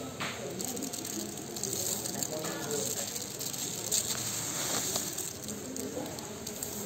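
Dried green cardamom pods rustling and rattling as a hand scoops them from a sack and lets them spill back, with a few sharper clicks.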